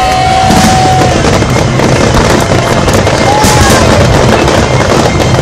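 Fireworks going off in a dense, loud, continuous barrage of bangs and crackles, with brief whistles near the start and about three seconds in.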